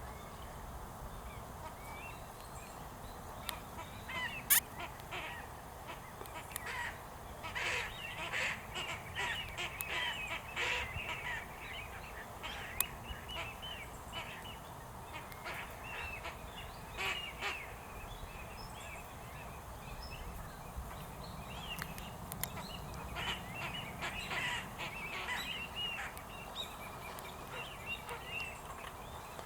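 Wild ducks calling: many short, high notes coming in bouts, with a single sharp click about four and a half seconds in.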